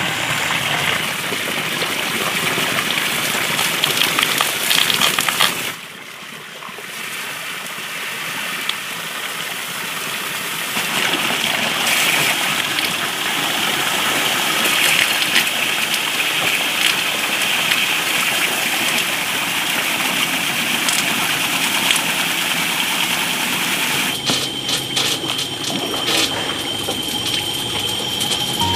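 Water running steadily from a tap, a continuous gush.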